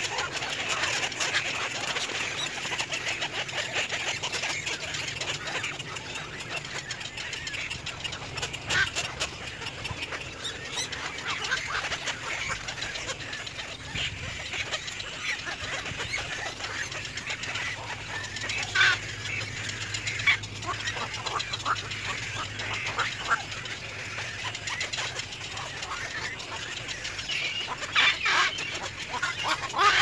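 Many birds calling at once: a steady chatter of short, harsh calls, with a few louder squawks standing out in the second half.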